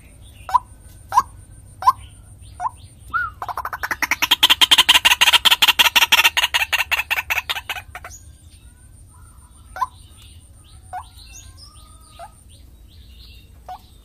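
White-breasted waterhen calling: short single notes a little under a second apart, then a loud, fast run of rapid repeated notes from about three to eight seconds in that fades away, followed by scattered single notes.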